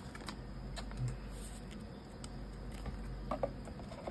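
Faint, scattered light clicks and soft rustles of trading cards and plastic card sleeves being handled, over a low steady hum.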